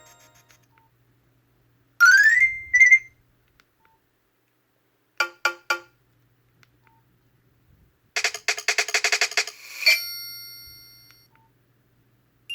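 Nokia 5300 XpressMusic notification tones played one after another through the phone's speaker, with short silences between them. First comes a quick rising chirp and a short blip, then three quick notes. Last is a fast run of notes ending on a ringing tone that fades away.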